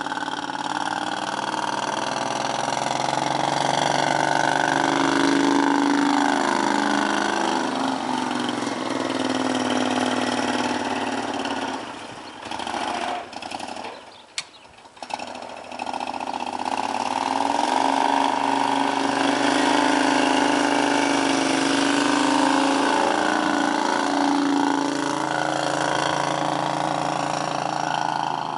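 John Deere 6x4 Gator utility vehicle's engine running as it plows snow, its pitch rising and falling with the load. The sound drops away for a few seconds about halfway through, then comes back.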